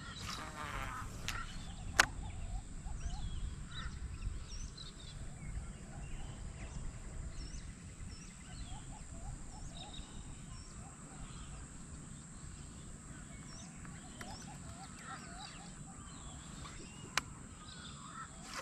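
Birds calling around the river, many short chirping calls scattered throughout. A sharp knock comes about two seconds in and another near the end.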